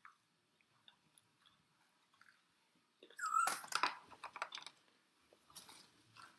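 Close-miked chewing of food with wet mouth clicks: faint for the first three seconds, then a louder spell of chewing about three seconds in and another shorter one near the end.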